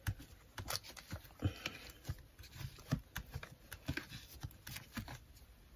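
Cloth rubbing ink off a clear acrylic stamp, with irregular light taps and knocks of the stamp and hands on the hard work surface, a few a second.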